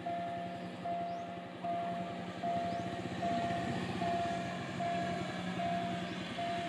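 Railway level-crossing warning signal beeping evenly, a little more than once a second, as a train approaches. Beneath it is the low steady hum and rumble of the train.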